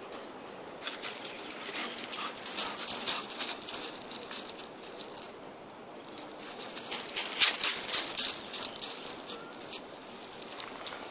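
Steps crunching on loose pebbles and gravel, irregular crackling in two spells: from about a second in to about five seconds, and again louder around seven to nine seconds.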